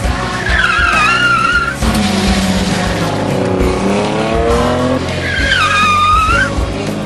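Drift car sliding with its tyres squealing twice in wavering high squeals, and the engine revving up in a rising pitch between the two slides.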